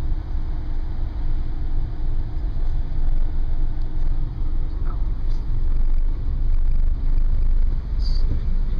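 All-wheel-drive car driving slowly over soft sand, heard from inside the cabin: a steady low rumble of engine and tyres.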